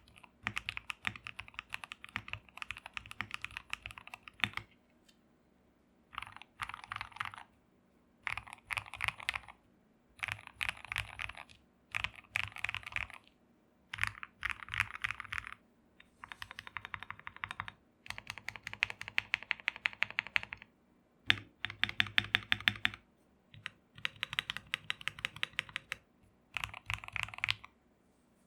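Typing on an Akko PC75B V2 mechanical keyboard: short bursts of rapid keystrokes, each lasting a second or two, separated by brief pauses.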